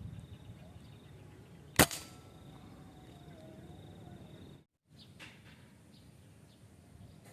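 A single sharp air-rifle shot about two seconds in, with a softer knock right after it, over faint outdoor background.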